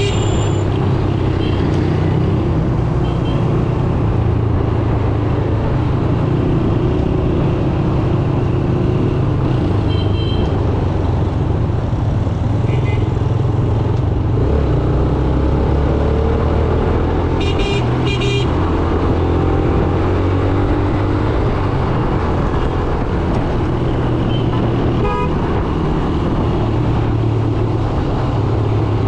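Yamaha YBR 125G's single-cylinder four-stroke engine running steadily on the move, with road and traffic noise around it. Vehicle horns honk in short toots now and then, the loudest a pair of quick blasts about two-thirds of the way through.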